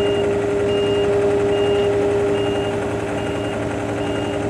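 Heavy machine backing up: its reversing alarm beeps steadily about once a second over the running engine.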